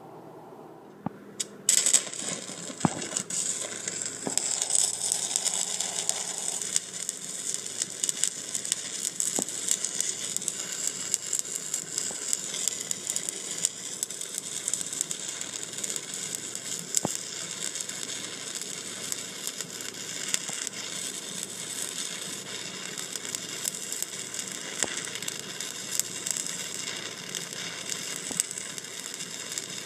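Stick welding arc from a 1/8-inch 7018 electrode at about 120 amps, struck about two seconds in and then crackling steadily as a single-pass vertical fillet weld is run.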